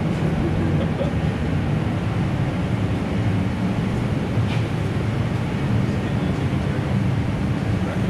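A vehicle engine running steadily, with a fast low pulse.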